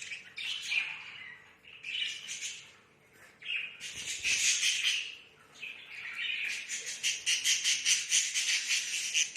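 Budgerigars chattering and warbling in several bouts with short pauses between them, the longest stretch in the last few seconds.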